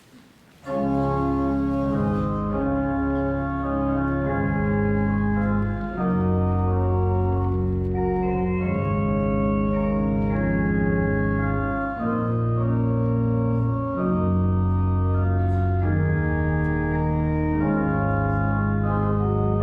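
Organ playing the introduction to a hymn in slow, held chords over a deep bass, the chords changing every second or two. It comes in about a second in, after a brief hush.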